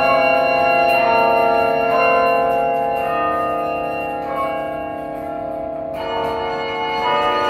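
The 54-bell Yale Memorial Carillon being played: bronze bells struck in a melody, about one new note or chord a second, each ringing on and overlapping the next. The playing thins out briefly, then a fresh chord comes in about six seconds in.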